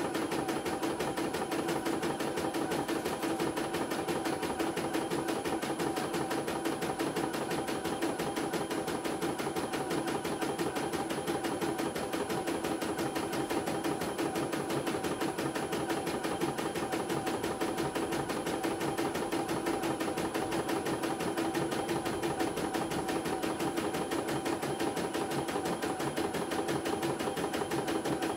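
CNY E900 computerized embroidery machine stitching a design: a steady run of rapid, even needle strokes as the hoop moves under the needle.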